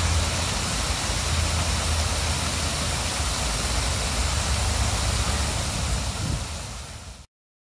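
Steady rushing outdoor noise with a strong low rumble underneath. It fades over the last second or so and then cuts off.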